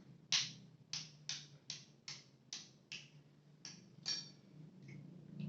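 A duck egg tapped again and again on a hard edge to crack its shell: about nine sharp little taps, roughly two a second and slightly uneven, ending about four seconds in.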